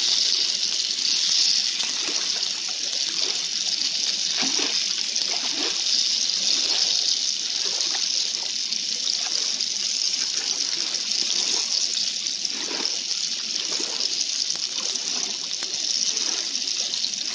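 Breaded walleye fillets frying in hot oil in a pan: a steady sizzle, with occasional light taps and scrapes as the pieces are turned with tongs.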